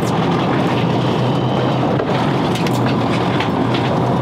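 Charter boat's engine running steadily with a constant low hum under a haze of wind and water noise, with a few short ticks scattered through it.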